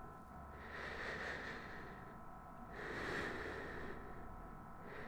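A person breathing normally in and out through the mouthpiece of an EasyOne Pro lung function tester: soft, even breaths as gentle rushes of air about every two seconds, the resting tidal breathing taken before a diffusion capacity test.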